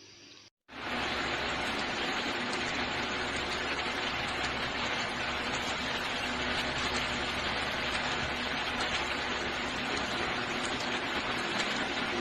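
Steady, dense hissing noise with a fine crackle, starting abruptly about a second in after a brief silence.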